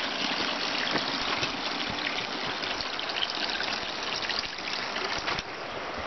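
Small woodland stream trickling steadily through a narrow gully, the water sound lessening a little after about five seconds.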